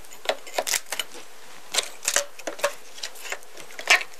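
Wooden package-bee cages being pried apart with a metal tool: irregular wooden cracks, creaks and scrapes, the loudest near the end. Under them runs the steady buzz of the bees packed inside the screened packages.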